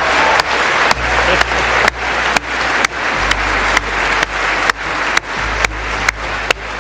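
Large audience applauding, a dense steady clapping that fades toward the end, with background music laid over it: a steady beat about twice a second over shifting bass notes.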